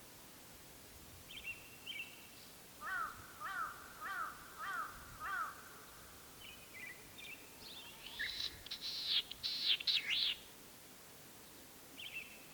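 Latham's snipe calling: a run of five harsh, evenly repeated notes, then about three seconds later a louder burst of quick sweeping high calls. A few brief chirps come near the start and the end.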